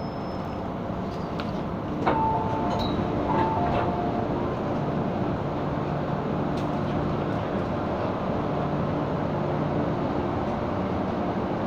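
Interior running noise of an MTR M-Train, a steady rumble with a low electrical hum. About two seconds in there is a sharp click, then a descending two-note chime sounds twice.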